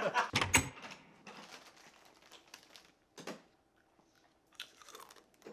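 A brief outburst of laughter in the first second, then quiet broken by the faint crinkling of a plastic snack bag being handled, a little past three seconds in and again near the end.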